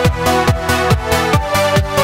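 Electronic dance music: a steady kick drum about twice a second under held synth chords.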